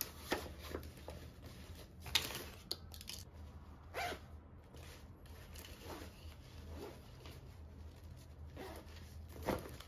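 A cloth backpack is handled and zipped while a laptop is packed into it. The sound is a series of short fabric rustles and zipper scrapes, loudest about two seconds in and again near the end.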